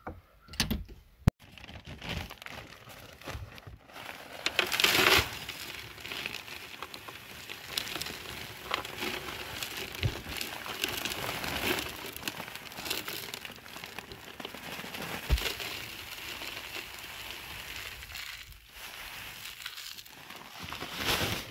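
Coarse rock salt pouring from a bag into a plastic bucket: a continuous grainy rattling hiss of granules, loudest about five seconds in, preceded by a sharp click about a second in.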